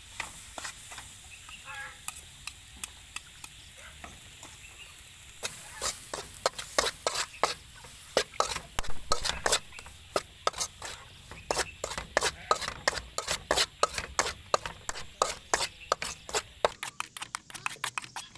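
Food being stirred in a pan of frying oil: a spatula scraping and knocking against the pan over faint sizzling. The knocks come thick and fast from about five seconds in.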